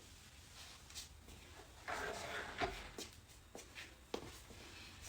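Faint shuffling and a few light taps of a person moving about in a small room, with a brief rustle about two seconds in.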